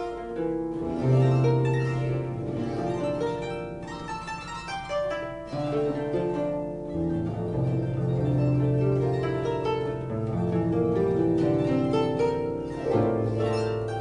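Harp music: plucked harp notes in a flowing melody over low notes held for seconds at a time.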